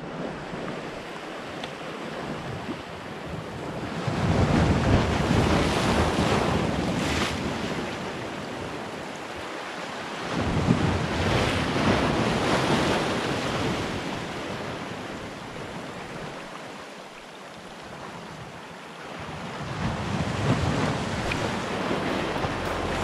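Small waves washing in over shoreline rocks at the water's edge, swelling up about three times and easing back between, with wind buffeting the microphone.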